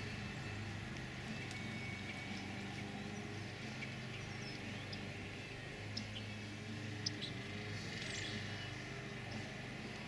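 Low steady hum with a few faint, short, high chirps and ticks, the clearest about six to eight seconds in.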